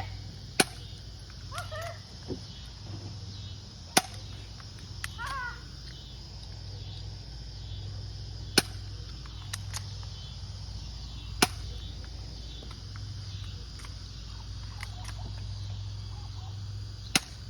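Airsoft gun firing single shots, five sharp cracks spaced a few seconds apart.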